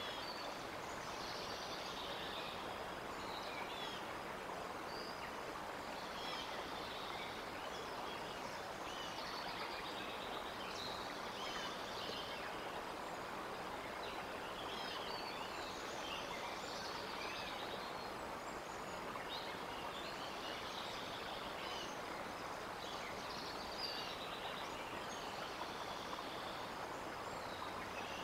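Woodland ambience: small songbirds chirping and calling on and off in the surrounding trees over a steady rushing background.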